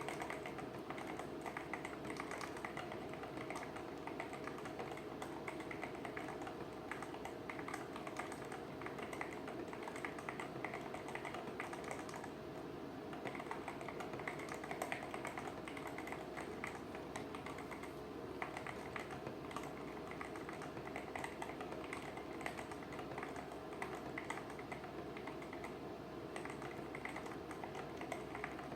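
Continuous rapid typing on a mechanical keyboard fitted with stock Outemu Red linear switches, a dense stream of keystroke clacks.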